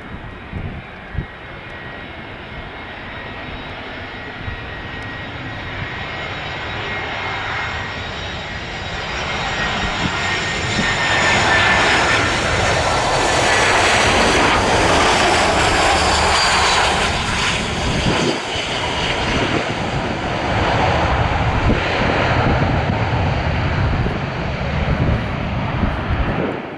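Airbus A320's CFM56 jet engines on a landing approach: a steady whine with high tones that grows louder as the airliner nears, peaks about halfway through as it passes close, the tones sliding down in pitch. The engine noise then stays loud as a rumble while the aircraft lands and rolls down the runway.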